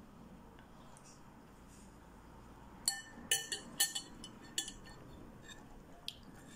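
A metal spoon clinking against a ceramic bowl: about five sharp, briefly ringing clinks close together starting about three seconds in, and one faint click near the end.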